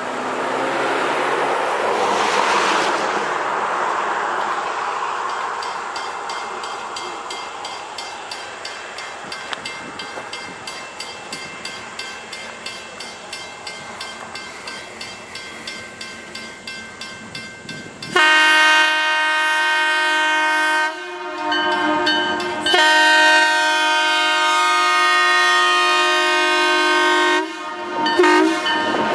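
A vintage EMD F-unit diesel locomotive approaches with faint rhythmic wheel clicks over the rail joints, about two a second, then sounds its multi-chime air horn loudly from about two-thirds of the way in: a long blast, a shorter one, a held blast of over four seconds, and a short one near the end.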